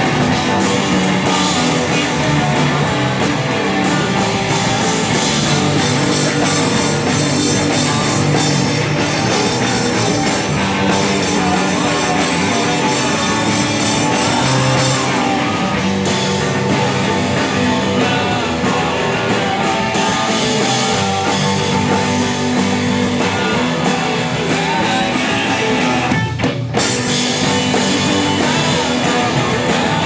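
Live rock band playing through amplifiers: electric guitars, electric bass and drum kit, loud and steady. The band cuts out for a split second a few seconds before the end and comes straight back in.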